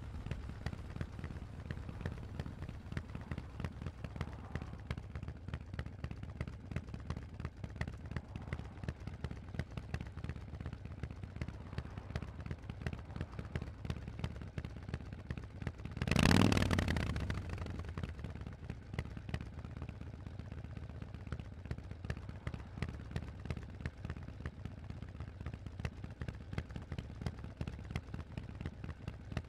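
Harley-Davidson Forty-Eight's air-cooled 1200 cc V-twin running through a Vance & Hines exhaust while riding, a steady pulsing rumble. About sixteen seconds in, a sudden loud rush of sound swells and dies away over a couple of seconds.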